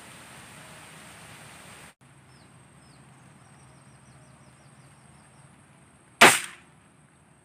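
A PCP air rifle fires a single shot about six seconds in: one sharp, loud crack that dies away within half a second. Before it there are faint, high, quickly repeated chirps from a bird.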